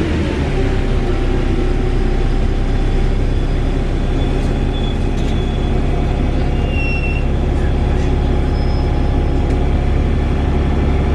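Wright Gemini 2 VDL DB300 double-decker bus running. Its engine falls in pitch right at the start, then holds a steady low drone, with a few brief high squeaks in the middle.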